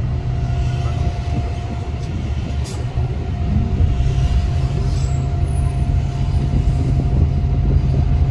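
Passenger train running, heard from inside the carriage: a steady low rumble with a constant hum.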